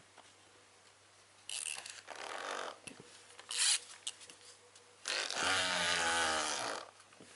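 Clockwork motor of a wind-up toy mouse buzzing in bursts: one of about a second, a short one, then a longer run of nearly two seconds near the end.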